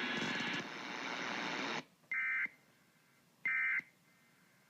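Broadcast static hiss that cuts off after about two seconds. Then two short, identical electronic data bursts follow: the EAS/SAME End-of-Message tones that signal the alert is over.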